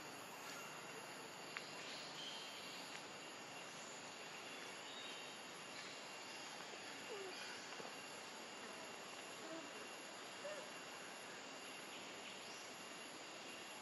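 Faint, steady insect drone with a continuous high thin tone, over a low hiss of forest background. A few faint short chirps come in the second half, and a single light click sounds about a second and a half in.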